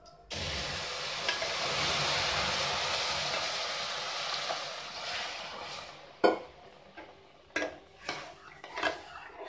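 Milk poured into a hot pressure cooker of ghee-roasted semolina sizzles loudly as it hits, the hiss dying away over about five seconds. Then a steel spoon stirs and scrapes in the pan with a few sharp clinks.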